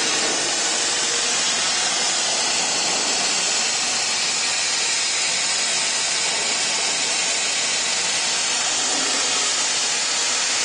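Plasma arc torch cutting through a steel pipe on a five-axis CNC pipe cutting machine, giving a loud, steady hiss.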